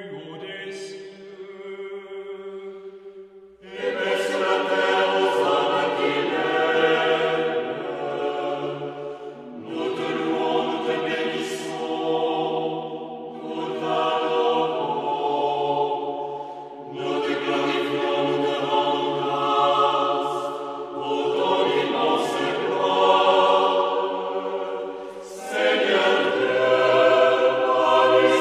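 Group of voices singing a hymn in phrases of a few seconds each, with short breaks between them. It opens with a single held note, and the full singing comes in about three and a half seconds in.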